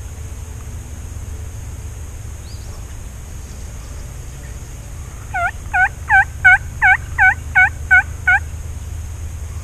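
A run of about nine wild turkey yelps, about three a second, each note dipping and rising in pitch, starting about halfway through. A steady low rumble sits underneath.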